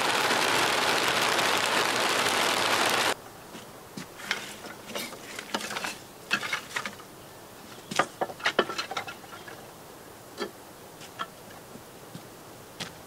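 Steady rain falling, cut off suddenly about three seconds in. After that, scattered light knocks and clatter of things being handled at a workbench, with a few sharper taps around the middle.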